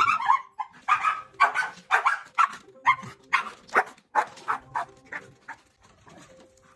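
A dog barking over and over, about two to three short barks a second, growing fainter toward the end.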